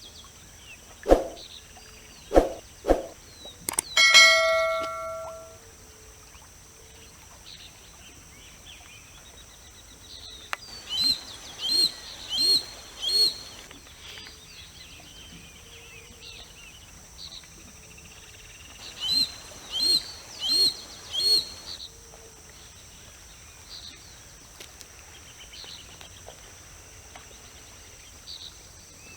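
Three sharp knocks, then a loud metallic clang about four seconds in that rings on for a second or so. Later come two runs of four loud, harsh, rasping calls about eight seconds apart, likely from a Harris's hawk. Faint chirps of small birds and a steady high whine carry on in the background.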